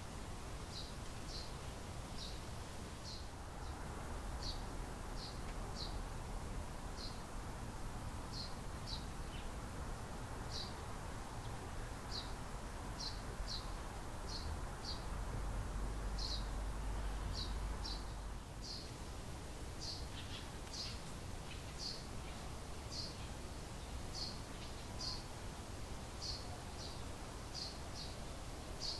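A small bird chirping over and over in short high notes, one or two a second and often in pairs, against a low outdoor rumble that swells for a few seconds past the middle.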